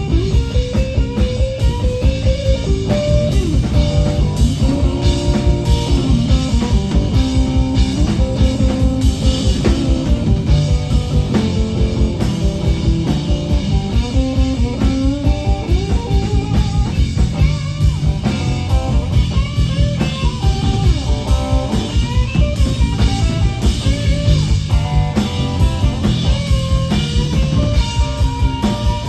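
Live blues band playing an instrumental passage. A Telecaster-style electric guitar plays a lead line full of string bends over bass guitar and a drum kit keeping a steady beat.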